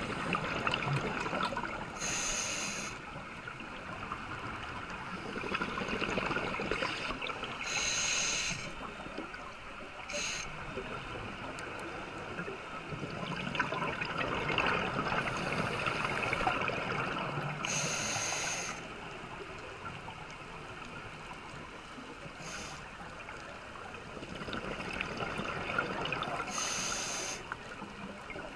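A scuba diver breathing through a regulator underwater: a short hissing inhale every several seconds, each followed by a long rush of exhaled bubbles.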